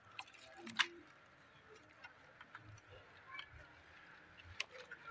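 Guinea pigs chewing lettuce leaves: faint, irregular crisp crunching clicks, with one sharper click about a second in and another near the end.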